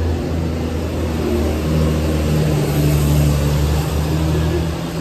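Engine of a vehicle approaching in the tunnel, a steady low hum that grows somewhat louder and rises in pitch about two seconds in.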